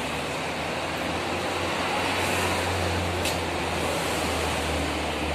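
City road traffic: a steady hiss of passing vehicles, with a low engine rumble that grows louder through the middle and eases toward the end. A single sharp click comes about three seconds in.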